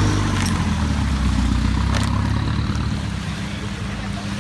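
Longtail boat engine running steadily with a low drone, dropping back about three seconds in. Two sharp knocks, one about half a second in and one about two seconds in.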